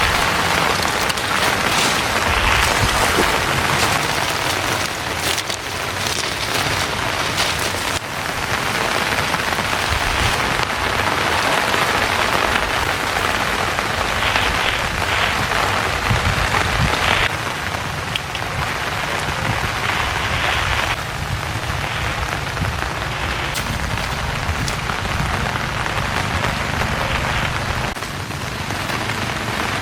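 Heavy rain falling steadily, with the sharp taps of individual drops striking close by.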